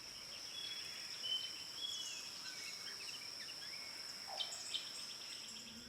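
Natural outdoor ambience: a steady, high-pitched insect drone with scattered short bird chirps over it.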